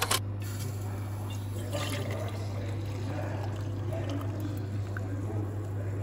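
Coffee poured from a glass coffee-maker carafe into a metal-lined insulated tumbler: a steady liquid pour, over a low steady hum.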